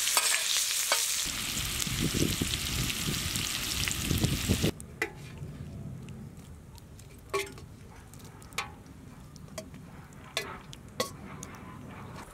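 Shark fish pieces sizzling loudly as they fry in hot oil. The sizzle cuts off suddenly about five seconds in. After that come scattered light clicks and knocks as fried pieces are tipped onto a platter with a ladle.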